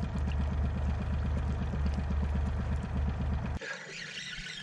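A boat's outboard motor runs steadily at trolling speed with a fast, even pulse, then cuts off abruptly about three and a half seconds in. A brief hiss follows.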